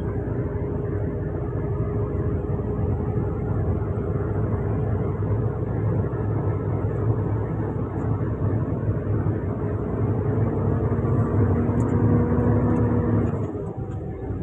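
Engine and road noise heard inside a large vehicle's cab while it drives along, a steady low hum with a held engine tone. The tone climbs a little and then drops suddenly near the end.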